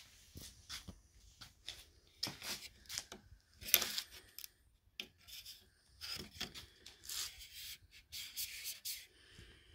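Hands handling the opened back of a flat-screen TV: irregular rubbing and scraping strokes, the loudest about four seconds in.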